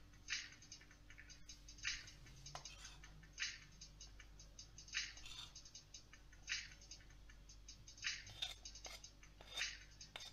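Flour being sifted into a glass mixing bowl through a mesh strainer that is shaken or tapped in regular strokes, each a short hissing rattle, about one every one and a half seconds, with two close together near the end.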